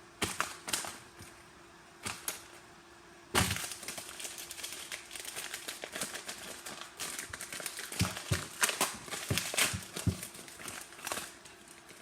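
Paper rustling and crinkling as a paper phone and its paper box are handled and opened, with a few sharp clicks at first, then a long run of crackling and ticking that fades out near the end.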